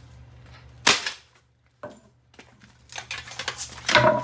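A single sharp knock about a second in, then a run of clattering metal fan parts near the end, with a brief metallic ring.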